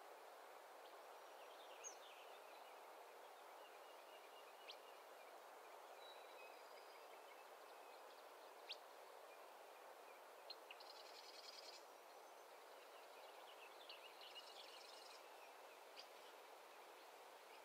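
Faint pond-side ambience: a steady soft hiss with scattered short, high bird chirps, and two brief high trills, one about eleven seconds in and one about fourteen seconds in.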